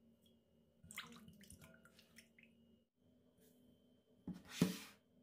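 Quiet kitchen sounds of making dough, over a faint steady hum: a few light clicks and knocks, then a short rushing pour or splash near the end.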